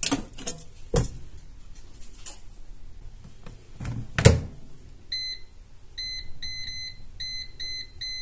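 A few clicks of the air fryer tray and its clip-on handle, then the door of a Britânia air fryer oven shutting with a thud about four seconds in. A run of about eight short, high beeps follows from its touch panel as the timer is set to five minutes.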